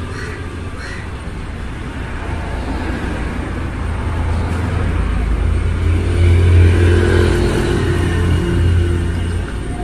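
Low engine rumble of a passing motor vehicle, swelling about six seconds in and easing slightly toward the end.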